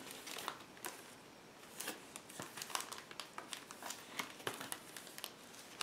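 Faint rustling and crinkling of cardboard mini-LP replica CD sleeves and a clear plastic sleeve being shuffled in the hands, with scattered light clicks.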